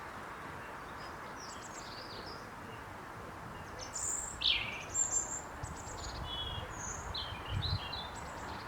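Small garden birds singing and chirping: scattered short high calls and quick song phrases, busier in the second half, over a steady outdoor background hiss.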